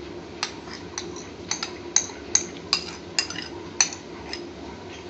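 Light metal clinks and taps, about a dozen irregular ticks, as tinned peeled tomatoes are tipped into a pan of chopped onions.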